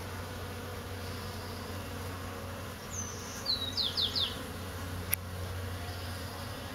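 Honeybees buzzing steadily around a hive entrance, a low, even hum. About three and a half seconds in, a bird gives a quick run of four descending chirps, and a single sharp click follows about a second later.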